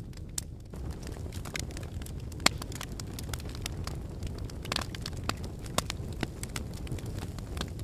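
A fire burning, with a steady low rush under frequent sharp crackles and pops; one pop about two and a half seconds in is louder than the rest.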